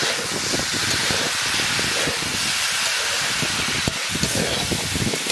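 Fusilli pasta and vegetables sizzling in a hot wok with soy sauce just added: a steady hiss with crackling.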